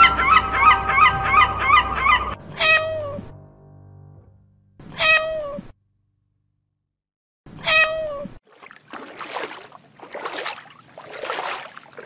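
A domestic tabby cat meowing three times, about two and a half seconds apart, each meow dropping in pitch at its end. Before the meows, a run of quick repeated chirps over steady tones; after them, soft swishing rushes about once a second.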